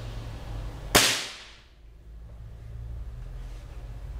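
A 4.5 mm CBC B19 S break-barrel air rifle, fitted with a 45 kg gas ram, fired once about a second in: a single sharp crack that dies away over about half a second. The shooter takes this shot to have probably dieseled.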